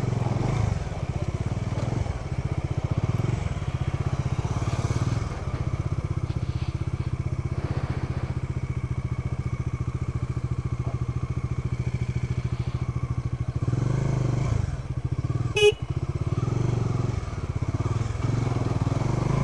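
Single-cylinder engine of a Bajaj Dominar 400 motorcycle running at low, steady revs as it is ridden slowly. A brief sharp noise cuts in about fifteen seconds in.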